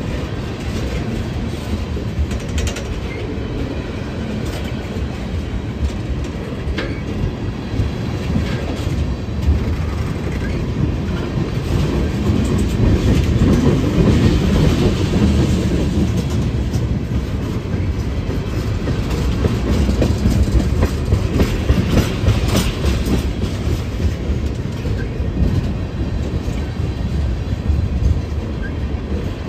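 A train passing close by: a steady rumble with wheels clicking over rail joints, swelling louder around the middle.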